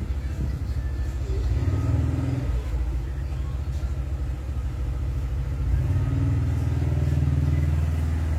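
Steady low drone of an electric blower fan running on the repair bench while the solder pads on a MacBook logic board are cleaned.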